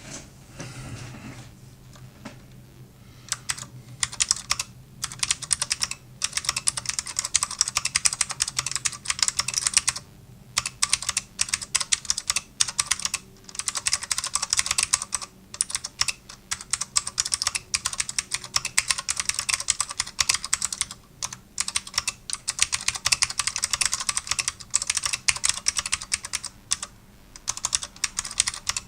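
Fast, continuous typing on a custom 68-key mechanical keyboard with clicky SMK blue Alps switches in a 1.5 mm aluminium plate, under DCS-profile keycaps. It starts about three seconds in and keeps going, with a few brief pauses.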